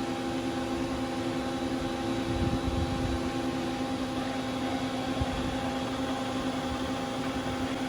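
1990 Mazak MT V-550A CNC vertical mill's spindle running steadily, a hum made of a few steady tones over a noisy background. One of the tones fades out about four seconds in.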